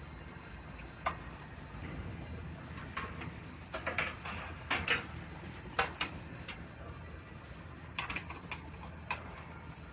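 Scattered light metallic clicks and knocks, about a dozen at irregular intervals, as steel car body parts are handled and fitted, over a steady low hum.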